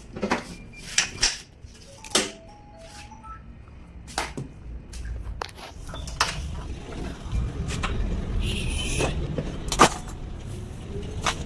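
Scattered sharp knocks and clicks of handling over a low vehicle-engine rumble that builds from about halfway through, with a short hiss near the end.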